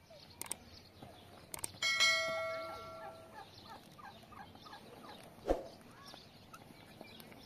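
YouTube subscribe-button sound effect: two mouse clicks, then a notification bell dings once and rings out for about a second and a half.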